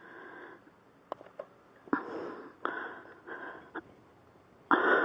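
Short breaths and a few light metallic clicks from brake caliper parts being handled, with about four brief hissy breaths spread through the clip.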